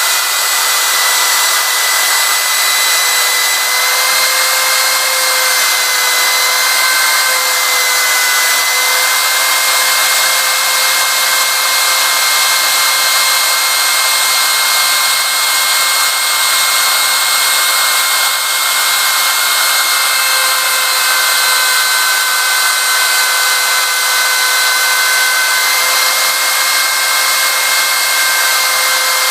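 Homemade CNC machine's 1200 W high-speed spindle running steadily with a loud high whine over a rushing noise. Its pitch sags slightly now and then, as it does when the spindle takes load.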